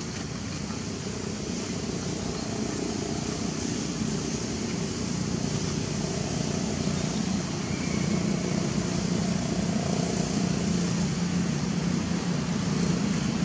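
A steady, distant engine drone that slowly grows louder.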